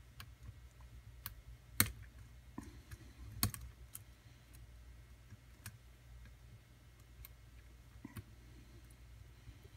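Scattered light clicks of a lock pick and tension wrench working the pins of a pin-tumbler challenge lock held in a deep false set, with two sharper clicks about two and three and a half seconds in.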